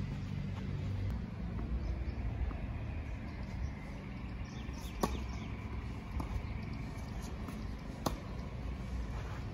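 Tennis racket strings striking the ball: a sharp hit on the serve about halfway through, a fainter hit from across the court about a second later, and another sharp hit near the end, over a steady low outdoor rumble.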